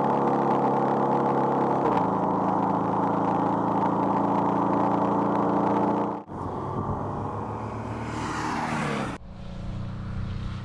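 Porsche 718 Cayman engine running at steady revs, its note dropping to a lower pitch about two seconds in. After a cut, the car passes close by with a falling note and a swell of rushing noise. After another cut near the end, the engine is heard quieter and steady.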